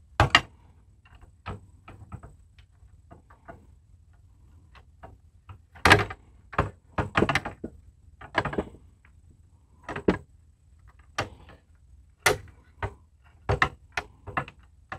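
Irregular clicks and knocks of an RV awning gas spring being handled against the awning arm, its end fitting tapping and clacking on the arm as it is lined up and fitted on.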